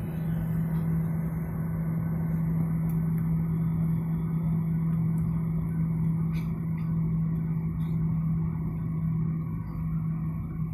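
Jet airliner cabin noise while taxiing, heard from inside at a window seat: the engines running near idle, giving a steady low hum over a broad rumble. A couple of faint clicks come about six seconds in.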